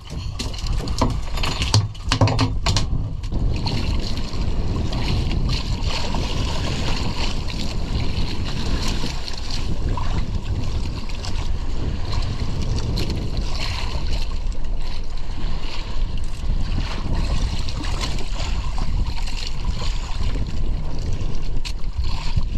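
Steady wind on the microphone and water washing against a small outrigger fishing boat at sea, with a few handling knocks about two seconds in.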